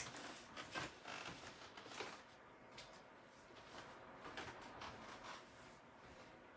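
Near silence, with faint scattered clicks and rustles of handling and movement in a quiet room.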